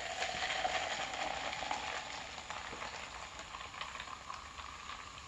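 Carbonated 7-Up poured from a can onto ice in a plastic cup, fizzing with many small pops. A faint note rises slowly as the cup fills, and the fizz fades gradually.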